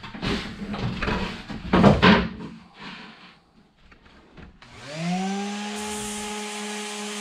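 A wooden batten knocking and scraping as it is lifted and moved across the hull floor. After a short pause, a corded random-orbit sander spins up with a rising whine that settles into a steady hum, and its hiss grows as it starts sanding the fibreglass floor to rough it for glue.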